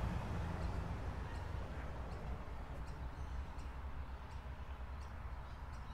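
Quiet outdoor ambience: a steady low rumble with faint high chirps repeating a little more than once a second.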